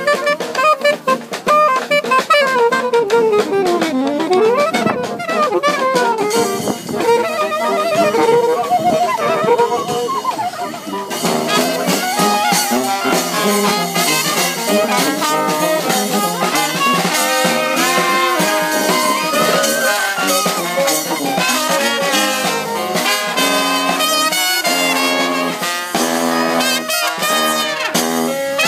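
New Orleans-style marching brass band playing a street beat: saxophones, trumpet, trombone and sousaphone over snare drum and cymbal. In the first few seconds a horn line slides down in pitch and back up. About eleven seconds in the full band comes in with busier drumming.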